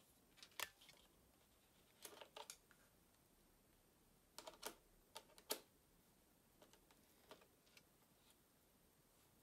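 Light, sharp clicks of buttons and controls on a Canon EOS 80D camera body being handled, coming in small clusters of two or three with near silence between.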